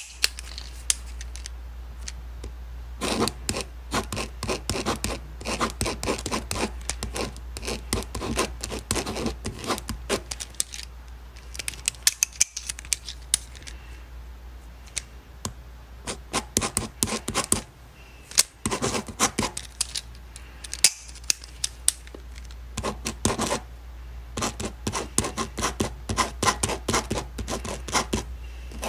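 Ballpoint pen writing on paper: quick scratchy strokes in bursts, with short pauses between them, over a steady low hum.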